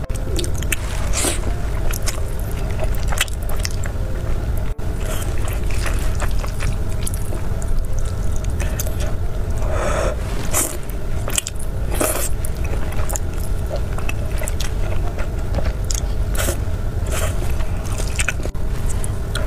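Close-miked mouth sounds of eating saucy instant noodles with melted cheese: wet chewing and smacking with repeated slurps, several longer slurps a little past halfway. A steady low hum runs underneath.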